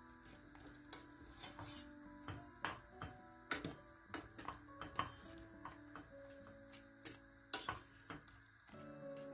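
Metal fork clicking and scraping irregularly against a stainless steel pot while mashing potatoes in milk, over soft background music.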